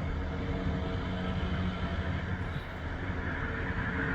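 Steady low rumble of a motor vehicle, with a faint constant engine hum.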